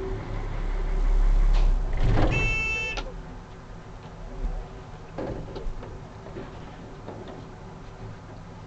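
A small river ferry's engine runs with a low rumble, then falls away about three seconds in. A brief high squeal comes just before it drops. After that only a few light knocks are heard.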